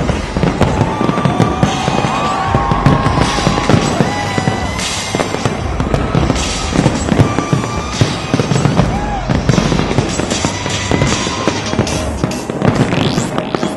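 Large fireworks display at full intensity: aerial shells bursting one after another with deep booms and a continuous dense crackle from glittering gold crackling shells.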